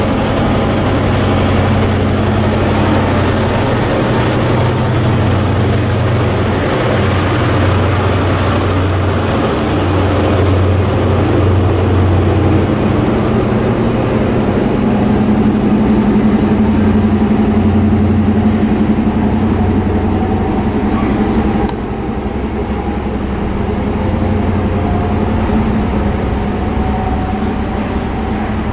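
A diesel train running past at close range: a steady low engine hum over a continuous rush of wheel and rail noise. The sound drops suddenly in level about two-thirds of the way through.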